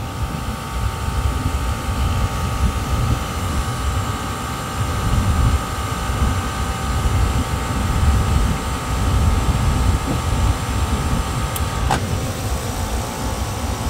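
Copeland digital scroll compressor running steadily while it loads and unloads under the switching of its solenoid valve. A steady tone runs over the hum and stops at a sharp click near the end, as the compressor changes state.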